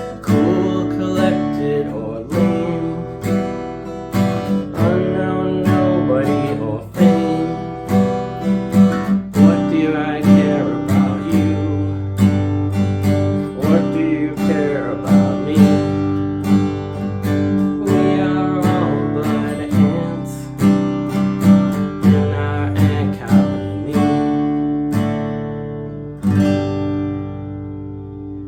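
Acoustic guitar strumming chords in a steady rhythm as an instrumental passage. Near the end a last chord is struck and left to ring out and fade.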